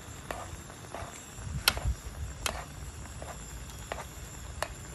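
A metal spoon clicking a few times against a frying pan while it spoons a simmering cream sauce over chicken breasts, with the sauce bubbling softly underneath.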